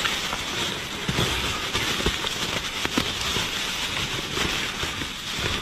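Plastic bags and plastic wrapping rustling and crinkling as gloved hands rummage through them, with a few light knocks.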